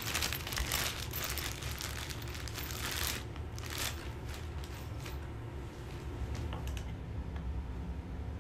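A plastic bag crinkling and rustling as it is handled, thickest in the first few seconds and thinning out after about five seconds, over a low steady hum.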